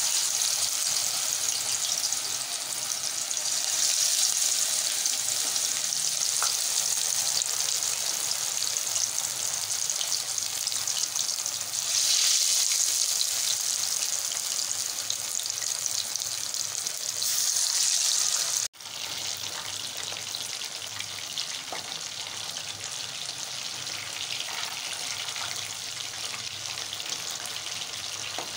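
Masala-coated fish pieces deep-frying in hot oil in a kadai: a steady, high sizzle. It is louder through the first two-thirds, then breaks off suddenly and goes on more quietly.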